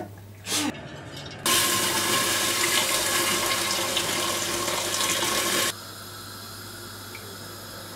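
Water poured in a steady stream into a stainless-steel pot, a splashing pour that starts about a second and a half in and cuts off suddenly about six seconds in.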